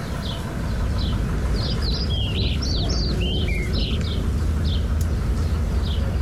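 Small garden birds chirping: one repeats a short falling chirp roughly every second, and a little over a second and a half in, others join with a quick flurry of chirps for about two seconds. A steady low rumble runs underneath.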